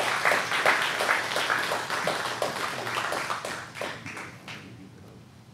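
A church congregation applauding to welcome a guest speaker, the clapping dying away about four and a half seconds in.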